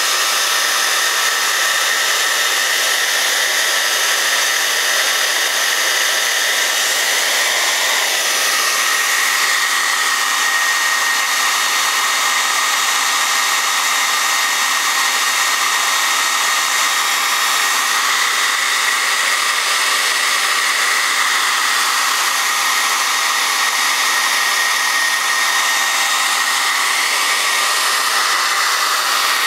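Vidal Sassoon hand-held hair dryer running steadily, blowing hot air at a tablet screen to soften the adhesive under the broken glass. It gives a continuous rushing hiss with a high whine, and the pitch shifts slightly about eight seconds in.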